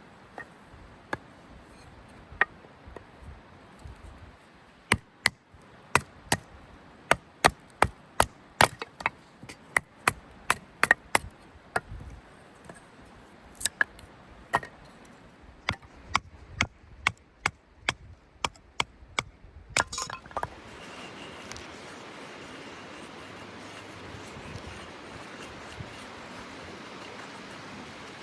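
Repeated sharp chopping strikes on wood, irregular, at about two a second at their densest, stopping about twenty seconds in. A steady hiss follows.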